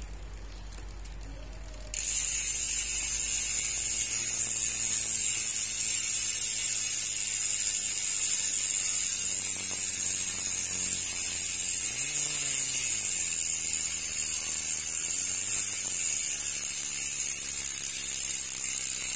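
Speedone Soldier 6-pawl bicycle rear hub freewheeling, its pawls clicking over the ratchet ring in a fast, steady, loud buzz that starts abruptly about two seconds in.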